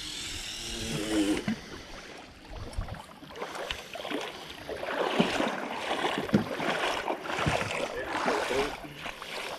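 Water splashing and sloshing in irregular bursts, mixed with small knocks, busiest from a few seconds in.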